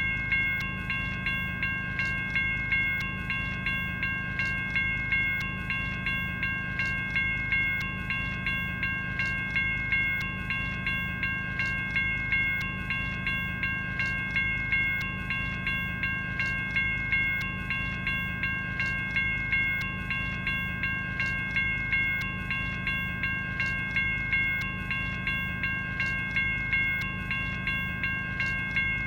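General Signals Type 1 electronic railroad crossing bell (e-bell) ringing continuously in a rapid, even rhythm of strikes. Each strike is a ringing bell-like tone of several pitches that hangs over into the next.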